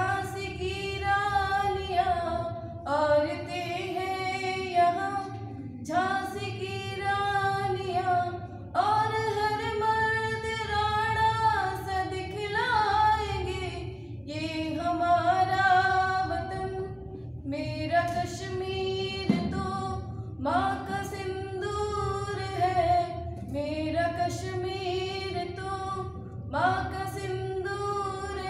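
A woman singing a Hindi patriotic song solo and unaccompanied into a microphone, in long held phrases with short breaths between them.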